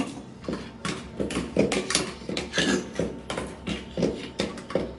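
Wooden pestle pounding papaya salad in a mortar, a run of dull knocks about two to three a second.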